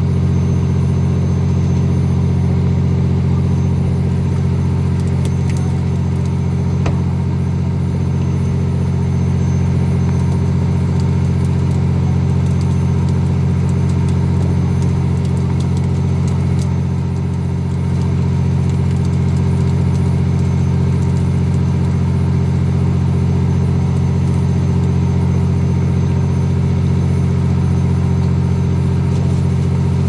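A fishing boat's engine running with a steady, even drone, easing off slightly for a moment about seventeen seconds in.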